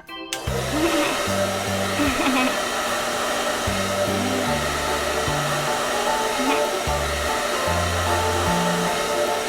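A steady rushing noise starts about half a second in and runs on over background music with a bass line that steps from note to note.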